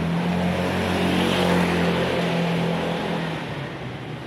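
Motor scooter engine passing close by, getting louder to a peak about a second and a half in, then fading away.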